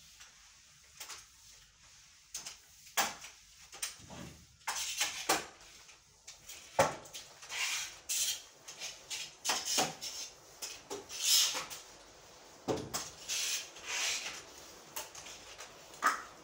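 A floor mop worked over a wet cement floor: irregular scraping swishes with scattered knocks and light clatters, busiest through the middle.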